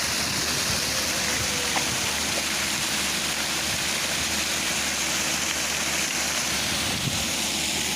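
Park fountain's falling water splashing in a steady, even rush.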